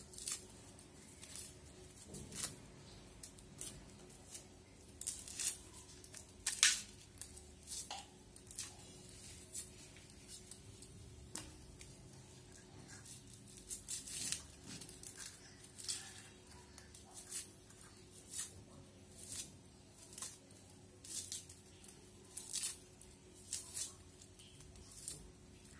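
Dry onion skins being peeled off by hand: short papery crackles and tears, roughly one every second or so.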